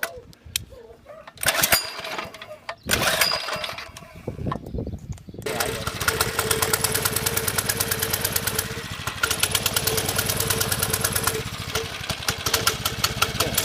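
A mini bike's small engine being started: two loud bursts, then about five seconds in it catches and runs with a rapid, steady firing beat.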